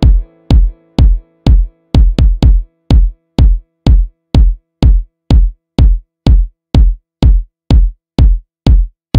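Background electronic dance music: a steady kick drum about two beats a second, with a held chord that fades out in the first second or so, leaving the kick drum alone with an occasional doubled beat.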